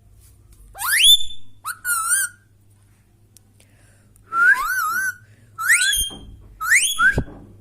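Indian ringneck parrot whistling. First comes a rising whistle and a short warbled note. After a brief pause come a wavering whistle and two more upward-sliding whistles.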